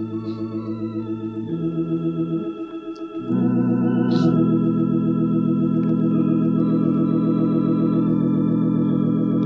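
Organ playing sustained chords of a slow hymn, the held notes warbling slightly; the chords change a few times and the playing swells louder about three seconds in.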